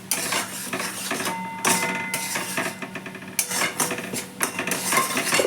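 Metal spoon scraping and clinking against a kadai while a thick milk-and-khoya mixture is stirred, in a run of irregular scrapes and knocks.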